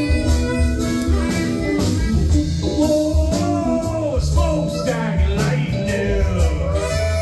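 A live rock band playing: drums, bass, electric guitar and keyboards. A harmonica plays at the start, and a man sings in the later part.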